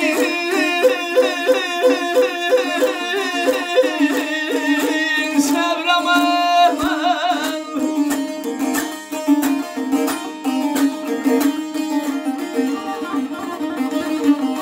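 Azerbaijani saz played solo: a quick, repeating plucked melody over a steady drone, turning to rapid strumming from about eight seconds in.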